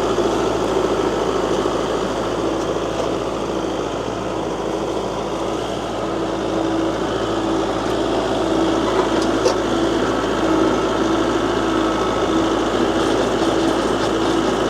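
Kubota tractor's diesel engine running steadily.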